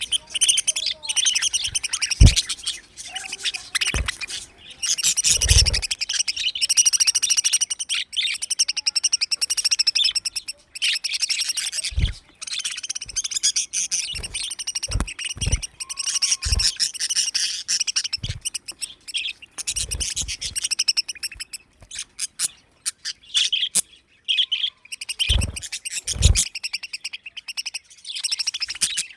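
A flock of budgerigars chattering and warbling continuously, with scattered short low thumps.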